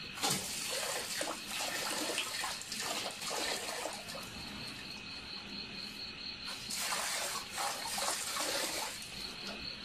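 Water from a lever-operated outdoor tap pouring and splashing into a metal bucket in two spells, turned on and off by a dog pressing the lever with its nose, with dripping in the pause between. Crickets chirp steadily behind.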